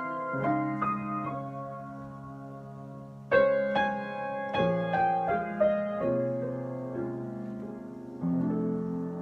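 Solo piano improvisation: slow, sustained chords with a few single melody notes, a louder chord struck about three seconds in and another near the end.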